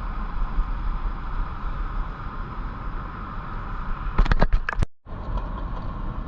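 Steady outdoor background noise with a low rumble. A quick run of sharp knocks about four seconds in, then the sound cuts out for a moment.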